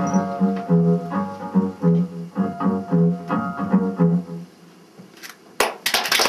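Acoustic guitar picking a steady, repeated low figure that stops about four and a half seconds in, ending the song. About a second later the audience breaks into applause.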